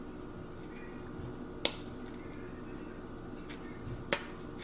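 Kitchen scissors snipping through the hard shell of a raw lobster tail: a few sharp, isolated snaps, one under two seconds in and the loudest near the end.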